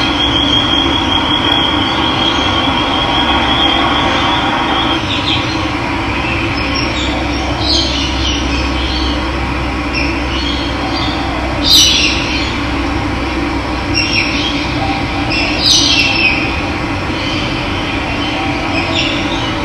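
Steady rush of running water with birds calling over it: a thin, high, trilling call for the first five seconds, then short high chirps every few seconds, the loudest about twelve seconds in.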